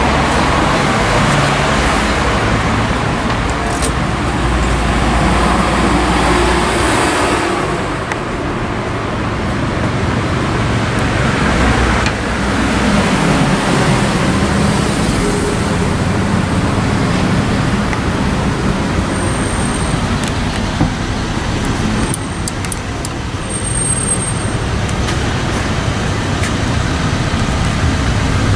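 Street traffic noise: road vehicles passing continuously, the rumble swelling and easing.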